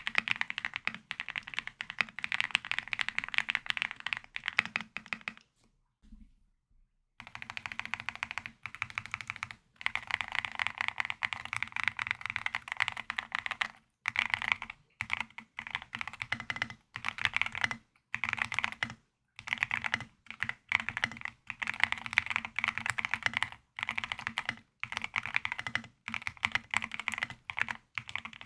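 Heracles TKL tenkeyless mechanical keyboard being typed on: fast, continuous keystrokes with a short pause about six seconds in and a few brief breaks later.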